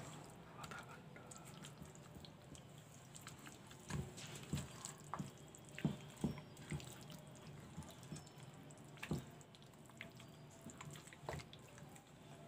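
Faint, irregular wet squelches and small clicks of hands rubbing thick masala paste into a whole raw chicken in a steel bowl, over a low steady hum.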